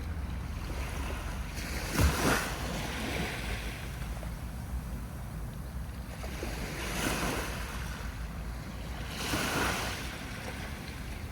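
Sea waves breaking on a beach: three surges of surf about two, seven and nine and a half seconds in, the first the loudest, over a steady low rumble.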